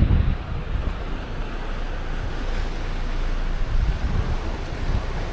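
Wind buffeting the microphone over the steady wash of the sea, heaviest in the low rumble, with a stronger gust right at the start.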